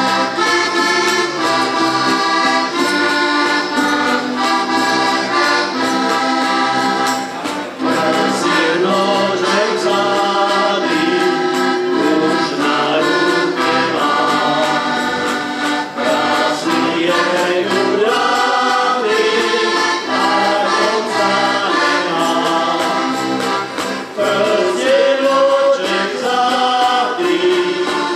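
Heligónkas (Slovak diatonic button accordions) playing a folk song together, with the players singing in chorus over them.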